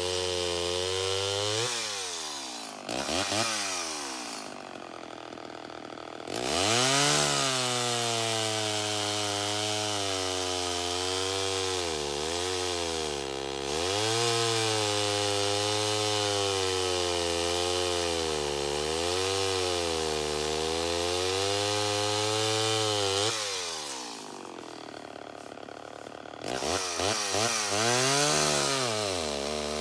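Vintage 1970s Homelite XL-12 two-stroke chainsaw cutting through a white oak log at full throttle, its pitch sagging and recovering under the load of the cut. It drops back to idle twice: about three seconds in and again around twenty-four seconds in, each time revving back up to cut again.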